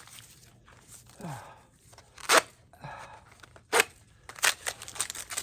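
Corn plants being dug and torn out by the roots: a sharp crunch about two seconds in, another near four seconds, then a quick run of smaller crunches and tears near the end.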